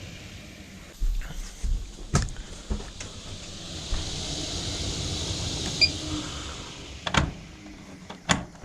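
A small electric motor, likely a MaxxAir roof vent fan just wired in, whirring for about three seconds with a steady hiss. A few sharp knocks sound before and after it.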